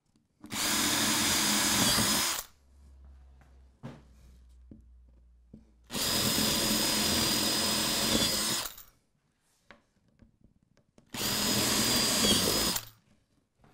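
Cordless drill boring holes through a thin plywood board: three separate bursts of about two seconds each, the motor's high whine dipping as each bit breaks through, with quiet gaps between.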